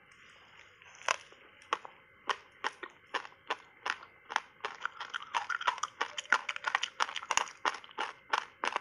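Close-miked crunching of reshaped ice thickly coated in matcha powder as it is bitten and chewed. A run of sharp crunches, a few a second, starts about a second in and comes faster and thicker in the middle.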